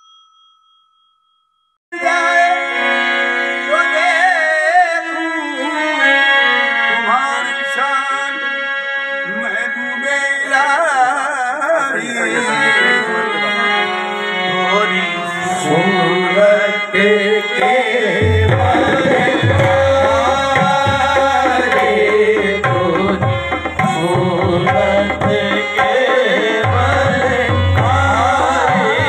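Qawwali performance. About two seconds in, a harmonium starts playing held chords, and male voices sing over it. From about the middle, the dholak and tabla come in with a steady beat. A bell chime is fading out at the very start.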